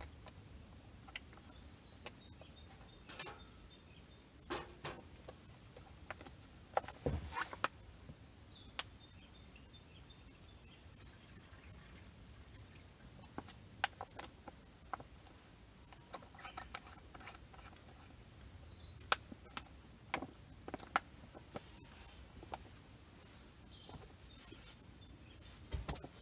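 Faint outdoor ambience: a steady, high, evenly pulsing chirr of insects, with scattered light clicks and knocks, a small cluster about seven seconds in.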